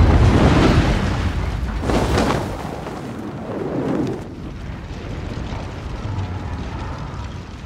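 Explosion of a crashed lunar landing training craft: a deep boom dying away, a second blast about two seconds in, then a lower rumble of the burning wreck.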